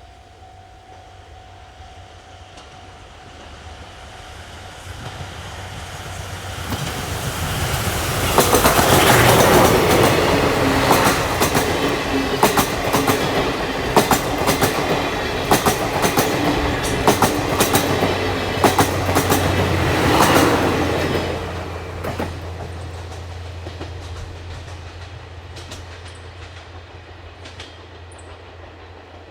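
Steam locomotive C57 180 and its train of coaches passing close by: the rumble builds as it approaches, the wheels clatter loudly over the rail joints for about a dozen seconds, and then the sound fades away.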